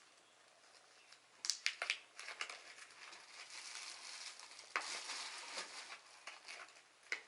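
Plastic candy packaging crinkling and crackling in irregular bursts as it is handled and opened, busiest about five seconds in.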